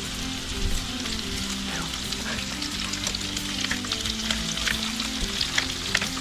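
Potatoes frying in oil in a cast iron skillet: steady sizzling with dense crackling. There is a soft thump about a second in.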